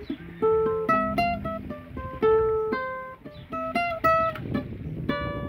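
Guitar played as an improvisation: single notes plucked one after another in a loose, unhurried melody, each note ringing briefly before the next.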